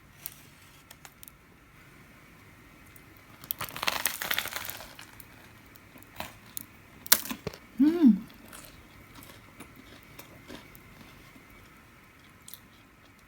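Crinkling of plastic food packaging for about a second and a half, with scattered sharp taps and clicks of handling. Near the middle there is a short hummed 'mm' from a voice.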